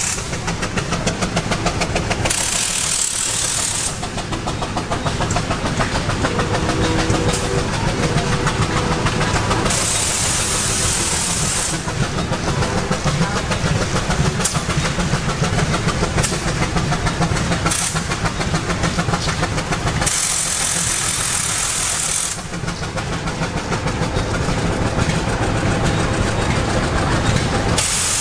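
Antique engines running with a steady, rapid rhythmic chugging, joined at times by a bright hiss, and a brief pitched tone about six seconds in.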